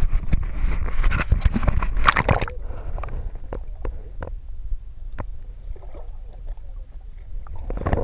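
Water splashing and sloshing around a handheld action camera as it is dipped into a shallow river. About two and a half seconds in, the sound suddenly turns muffled and quieter, with scattered clicks, as the camera goes underwater.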